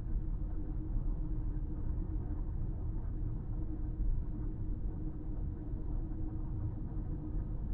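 Steady low road rumble of a car driving at highway speed, heard from inside the cabin, with a faint steady hum underneath.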